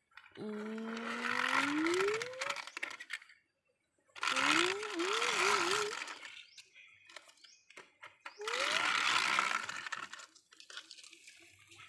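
A person imitating a car engine with the mouth: three buzzing "vroom" sounds. The first rises steadily in pitch, the second wobbles up and down, and there are short pauses between them.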